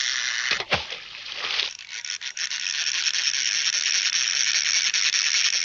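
Cartoon sound effect: a dense, hissing rattle, broken about a second in by a short downward swoop, then rattling on steadily.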